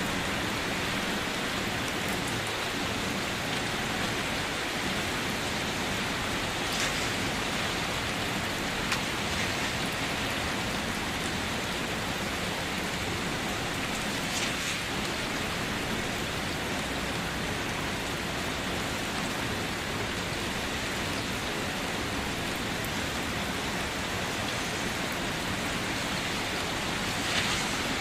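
Steady light rain falling and pattering on surfaces, with a few louder individual drops now and then.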